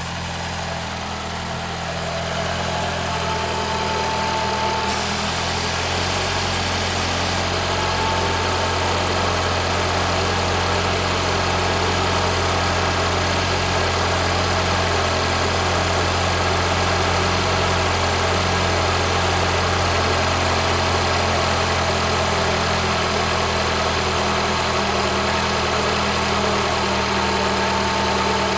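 Mini Cooper engine idling cold, with a thin high whistle that comes and goes: about three seconds in, again around eight seconds, and near the end. The whistle is from a faulty crankcase ventilation (PCV) valve and shows only while the engine is cold.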